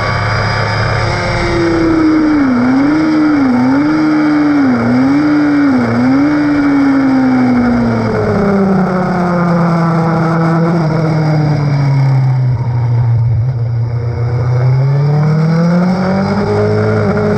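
Sport motorcycle engine heard from the bike at track speed, braking hard from high revs with four quick downshifts that each kick the revs back up. It then runs low through a slow corner and climbs again as the throttle reopens near the end.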